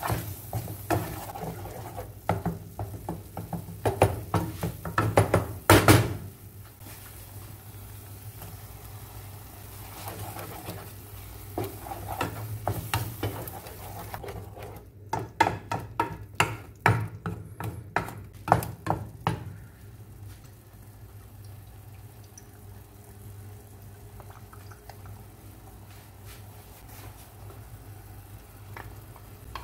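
Wooden spatula stirring and scraping a soft mash of eggplant and tomato in a nonstick pan, in two bouts of quick scrapes and taps, over a steady low hum.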